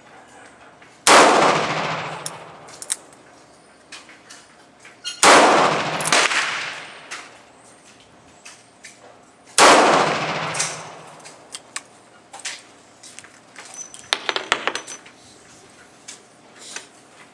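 Three handgun shots, about four seconds apart, each followed by a long ringing decay. A few seconds after the last shot there is a brief burst of light metallic clinking.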